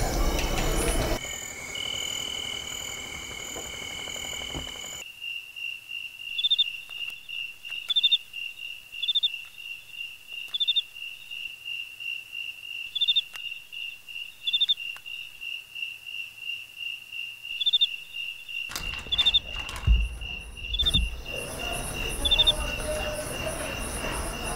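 Crickets calling at night: a steady fast-pulsed trill with a louder chirp about once a second. A few soft knocks and rustles come about twenty seconds in.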